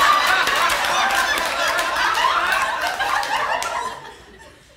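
A theatre audience laughing together, a dense wave of many voices that dies away about four seconds in.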